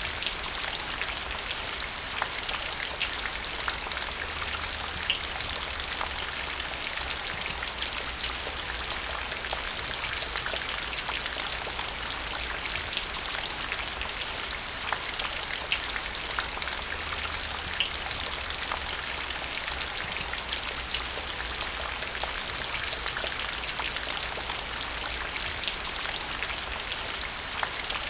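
Steady rain falling into a puddle: a constant hiss of rainfall with many individual drops plinking and splashing on the water.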